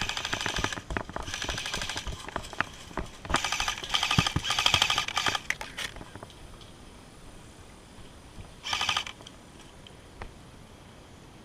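Airsoft guns firing full-auto, a rapid rattle in several bursts over the first five seconds and one short burst about nine seconds in, with scattered single clicks and pops between.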